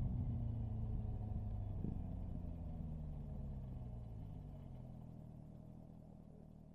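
C8 Corvette's V8 engine winding down, its note slowly falling in pitch and fading as the car slows, heard from inside the open-top cabin.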